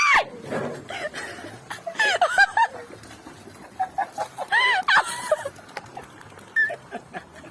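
A bird calling: a series of short, arching calls, with a sharp loud one right at the start and clusters about two and five seconds in.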